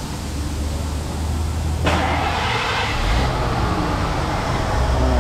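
Ford 5.0 fuel-injected V8 being started: the sound of the engine turning over comes in suddenly about two seconds in and keeps going. The fuel pressure gauge reads zero, a fuel delivery fault later put down to a weak fuel pump.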